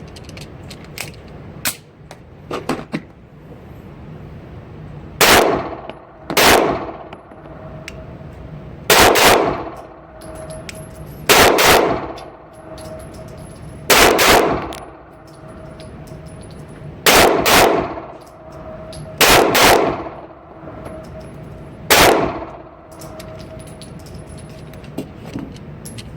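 Springfield XD subcompact 9mm pistol being fired: about nine loud single shots at uneven spacing, a couple coming in quick pairs, each with a short ringing tail. A few light clicks come before the first shot.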